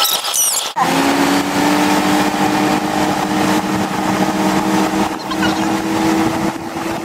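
Towing motorboat's engine running at a steady cruising speed, with the rush of its wake water and wind. A few brief high chirps come in the first second, before the engine drone begins.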